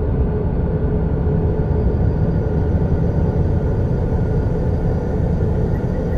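A steady, dense low rumbling drone with a few faint held tones above it, a dark space-ambient soundscape with no rhythm or change.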